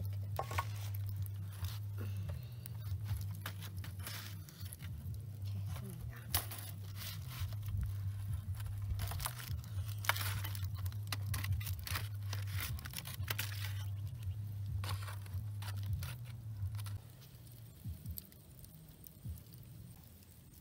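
Crinkling of aluminium foil and light metallic clinking as a wire grill basket with foil-wrapped oysters is handled and set over charcoal, over a steady low hum that stops near the end.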